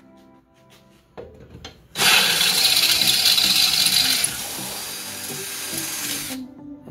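Cordless drill driving a gold-coloured bit through the steel side plate of a snowblower housing. It starts about two seconds in, is loudest for the first couple of seconds, runs quieter after that, and stops suddenly near the end.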